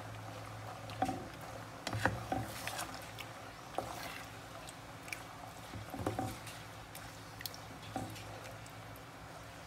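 Wooden spatula stirring a thick pork-blood stew in a pan: soft wet squelches and scrapes every second or two, over a low steady hum.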